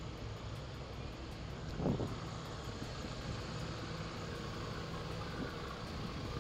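Motorcycle engine running steadily at low speed, a low even rumble, with one short louder surge about two seconds in.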